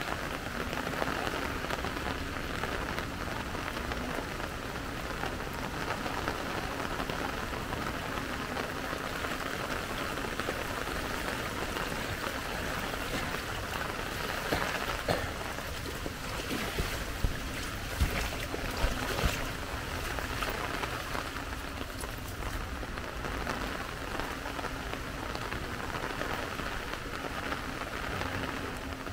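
Steady rain falling, with a few short, sharp taps a little past halfway through.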